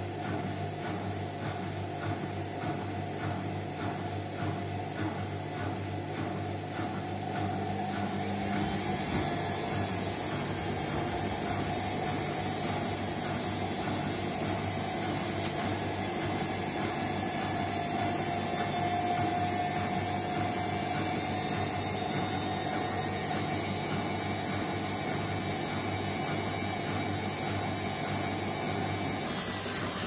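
Indesit front-loading washing machine running with a load of towels, with a regular pulse about twice a second. About eight seconds in it grows louder and steadier, with a rising hiss, as the drum picks up speed.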